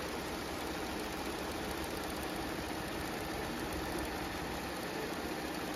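Fifteen-needle commercial embroidery machine running, stitching at high speed: a fast, even stitching rattle over a steady hum.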